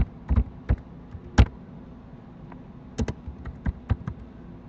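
Typing on a computer keyboard: a few scattered keystrokes, a pause, then a quicker run of about half a dozen keys, over a faint steady low hum.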